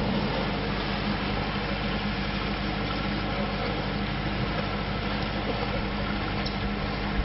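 Paddle steamer's machinery running with a steady low hum as the boat moves off.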